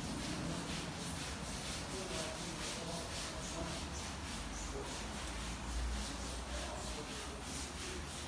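A pole-mounted floor scrubber with a black pad is pushed rapidly back and forth over a wet concrete floor, making a steady, rhythmic scrubbing of several strokes a second as it works the cleaner into oily grime.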